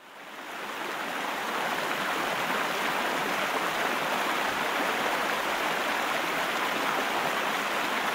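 Waterfall rushing, a steady roar of falling water that fades in over about the first second and then holds even.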